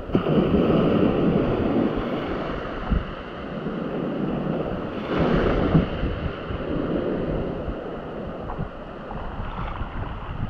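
Wind buffeting the microphone over the wash of sea waves, a steady rushing noise that swells near the start and again about five seconds in.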